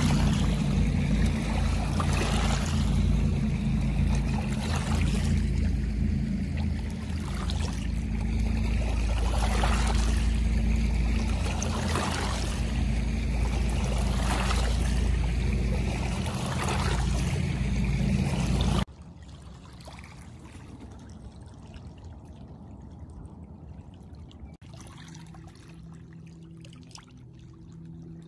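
Small waves lapping against a shallow, stony lakeshore, a wash about every two seconds over a steady low rumble. About two-thirds of the way through it drops abruptly to a much quieter steady hiss.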